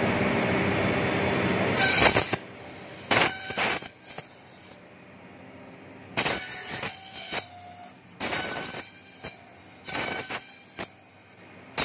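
Bamboo-skewer slicer-planer machine cutting bamboo strips fed through its rollers and planer blades. It runs steadily for the first couple of seconds, then gives short, loud, high-pitched bursts of cutting and whining each time a strip passes the cutters, with quieter running in between.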